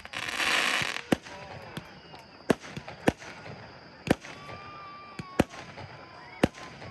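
Aerial fireworks: a loud hissing crackle for about the first second, then about six sharp bangs of shells bursting at irregular intervals.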